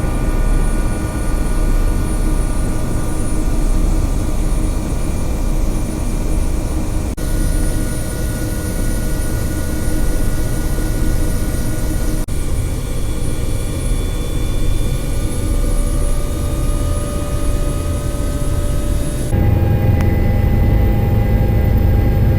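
Helicopter running, a steady loud mechanical drone with constant whining tones. The sound jumps abruptly a few times, and about three-quarters of the way through it becomes heavier and deeper.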